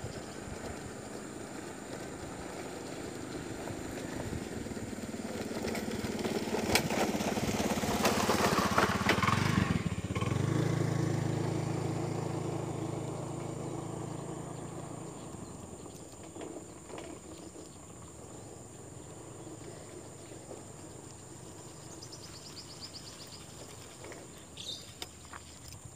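A motorcycle's engine passing by: it grows louder over several seconds and is loudest about eight to ten seconds in. Its note drops about ten seconds in, then fades away. Birds chirp faintly near the end.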